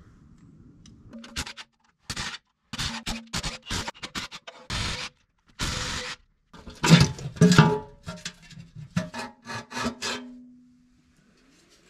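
Cordless impact driver with a socket running oil pan bolts out of a diesel engine's pan, in many short bursts of hammering with a brief stretch of free spinning near the end.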